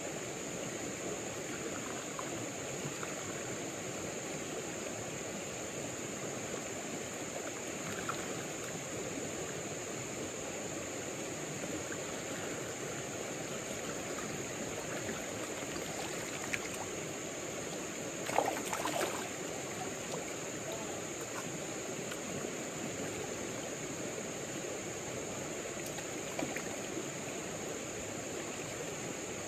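Steady rushing of a shallow trout river flowing over rocks and riffles. About two-thirds of the way through there is one brief, louder sound.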